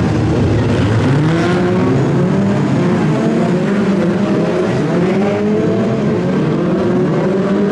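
A pack of BriSCA F2 stock car engines running together, loud and steady, with several engines revving up in overlapping rising pitches as the field gets going.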